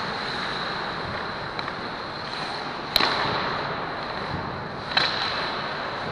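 Ice hockey play heard in an indoor rink: a steady hiss of the hall with two sharp, echoing cracks about two seconds apart, the crack of puck and sticks. A faint steady high tone sits under it throughout.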